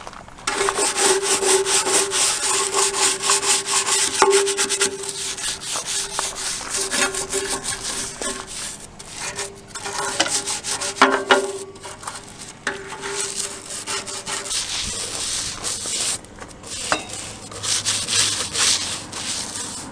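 A grimy old garden tractor being scrubbed by hand with cleaner: quick back-and-forth scrubbing strokes that start about half a second in, with short pauses between bouts.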